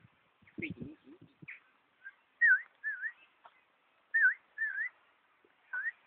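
Azure-winged magpie whistling: a series of five short, clear whistled notes, each dipping in pitch and rising again. A few soft low rustles or knocks come before them.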